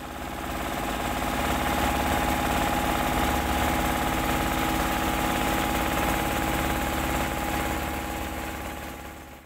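Engine of a wooden motorboat running steadily while the boat is underway, a constant hum with fine rapid pulsing, fading in at the start and out at the end.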